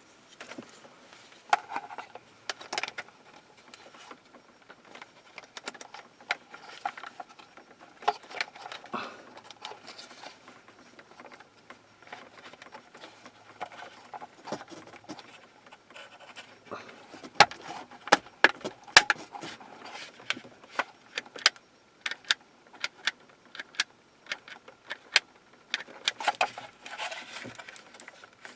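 Plastic parts of a car's interior map light housing being handled and fitted back together: a run of sharp clicks and light taps, coming thicker in the second half.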